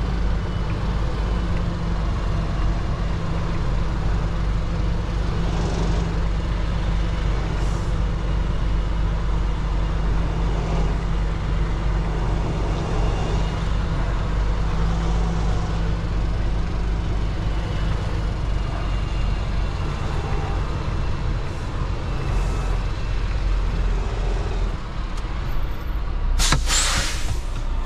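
A semi-truck's diesel engine running steadily at low speed, heard from inside the cab. Near the end comes one loud hiss of air, about a second long: the air brakes being set as the truck stops.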